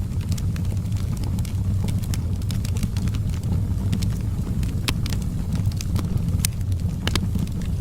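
Wood fire burning in a fireplace: a steady low rumble of the flames with irregular crackles and pops from the burning logs, a few sharper pops about five, six and a half and seven seconds in.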